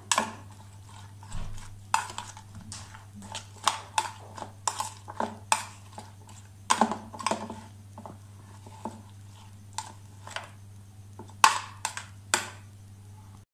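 A spoon clicking and scraping against a plastic bowl while stirring chopped onion, tomato and green chilli with raw egg, in irregular knocks a few times a second with the loudest near the end. A steady low hum sits underneath.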